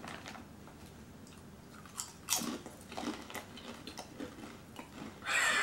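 Potato chips being bitten and chewed: a run of crisp crunches starting about two seconds in, then a louder rustle near the end.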